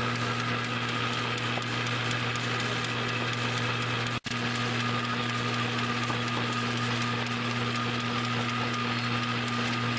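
Rasch RHE 2 chocolate-egg foil-wrapping machine running: a steady mechanical whirr of its motor and rotating wrapping turret over a constant low hum. The sound drops out for an instant about four seconds in.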